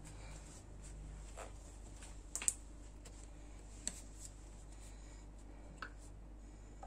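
Faint, scattered clicks and taps of a spoon and jar being handled, about five in all, the loudest a quick double click about two and a half seconds in, over a low steady room hum.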